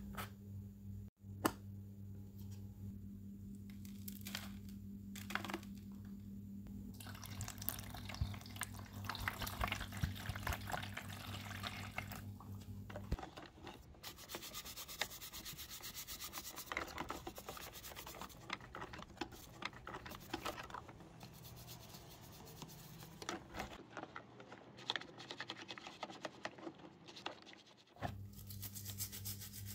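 Hand rubbing and sanding on a small die-cast metal model car part: dense, irregular scratchy strokes. A steady low hum runs underneath at first, stops suddenly about halfway through and comes back near the end.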